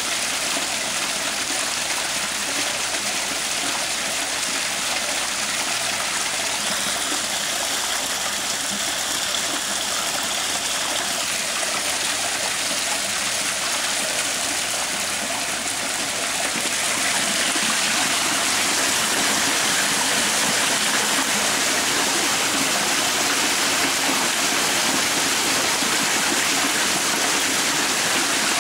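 Floodwater running and pouring steadily on a flooded patio, a continuous rushing that gets a little louder about two-thirds of the way through.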